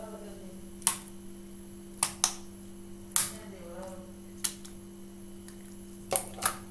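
Homemade borax-and-white-glue slime being stretched and squeezed by hand, letting out about seven sharp pops and snaps at irregular intervals. A steady low hum runs underneath.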